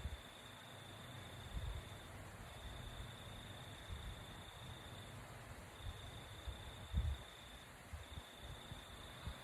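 A cricket trilling on one high, even pitch in long trills of two to three seconds with short breaks, over a low hiss. A few brief low thumps come in among them, the strongest about seven seconds in.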